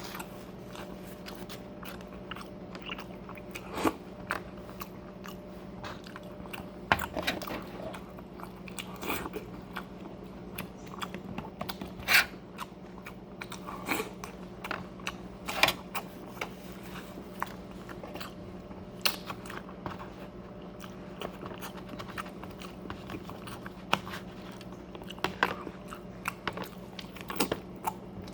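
Close-miked eating: chewing with irregular crisp crunches and wet mouth clicks, over a steady low hum.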